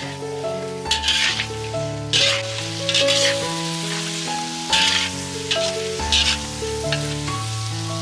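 Food sizzling in a hot pan, with bursts of louder sizzle every second or so as it is stirred, over background music with a melody.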